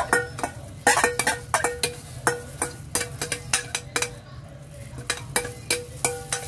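Stainless steel bowl clinking and knocking against a glass bowl as a seasoning mix is tipped and worked out of it: a quick, irregular run of sharp clinks, many ringing briefly.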